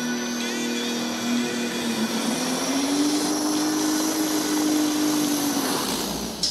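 Twin Cummins six-cylinder engines of a methanol-fuelled Light Modified pulling tractor running high in the revs, the pitch stepping up about two and a half seconds in as the pull gets under way, then falling away near the end.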